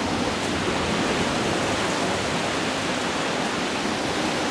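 Heavy thunderstorm rain pouring down, a steady even rush.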